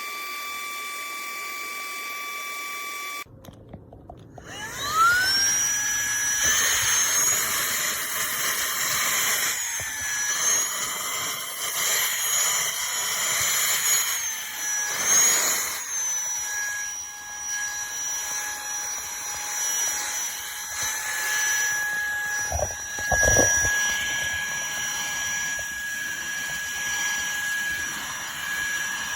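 Litheli LiteVac Mini cordless handheld vacuum's motor spinning up with a rising whine. The pitch dips and recovers repeatedly as suction load changes, then it runs with a steady high whine. A couple of low thumps come about two-thirds of the way through.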